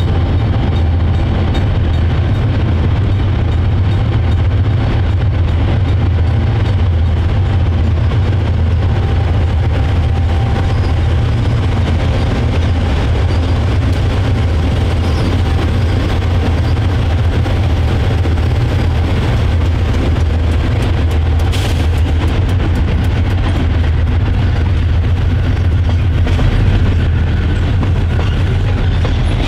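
Diesel-electric freight locomotives running past with a steady, loud low engine rumble.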